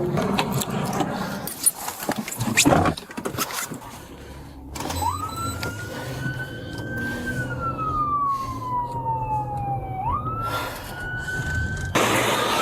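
Rustling and a few loud knocks, then a police siren wailing: its pitch climbs, slowly falls, and climbs again near the end.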